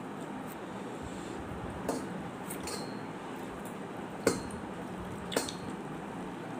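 Fingers mixing rice and fish curry by hand on a metal plate, with three sharp clicks against the plate about two, four and five seconds in, the middle one the loudest.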